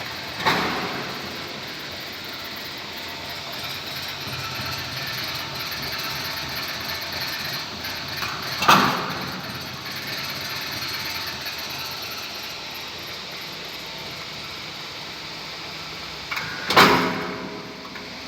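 Steel sheet leveling and cut-to-length machine running, a steady mechanical noise of the feed, broken by three sharp bangs about eight seconds apart, one per cutting cycle.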